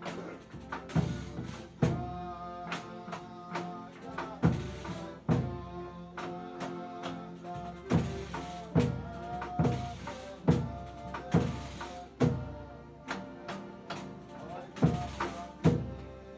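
Folia music: a deep drum struck steadily a little under once a second, with lighter drum strokes between, under held, pitched notes from instruments or voices.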